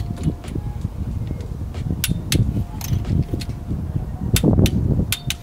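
A torque wrench on a spark-plug socket and extension tightening the new spark plugs of a Toyota 4.0L V6 to 14 ft-lb: several sharp clicks, about two seconds in and again near the end, over the low rumble of tool handling.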